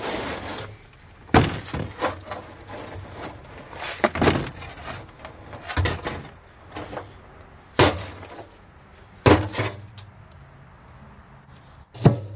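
A shovel working heavy, wet, sandy dirt out of a bin: about six sharp knocks a second or two apart, with scraping between them.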